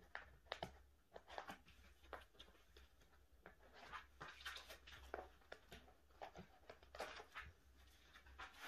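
Faint rustling and crinkling of plastic binder sleeves as pages are turned and photocards handled, in scattered short clicks, over a low steady hum.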